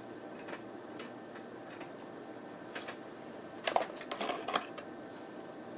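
Plastic lab ware handled on a bench: a few faint taps, then a short cluster of clicks and rattles about four seconds in as a disposable pipette is taken from its box.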